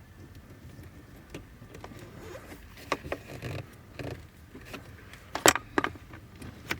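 Hands handling small parts and wiring: scattered light clicks and rustling, with a few sharp knocks, the loudest about five and a half seconds in.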